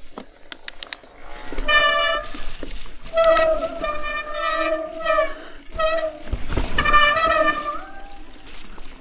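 Mountain bike disc brakes honking in several short, pitched bursts as the rider brakes on a wet, muddy descent, typical of wet rotors and pads, over the rumble of tyres on dirt. A few light clicks come near the start.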